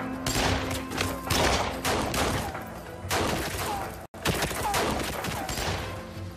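Automatic rifle fire in a firefight, shots coming in rapid volleys with echoing tails and a few short falling whines between them. The sound cuts out for an instant about four seconds in.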